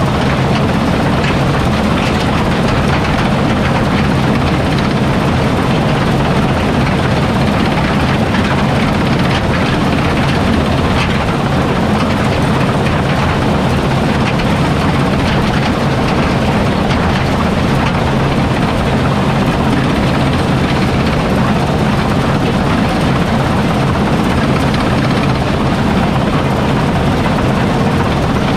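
Heavy farm machinery's diesel engine running steadily under load, a loud continuous drone with a deep engine hum.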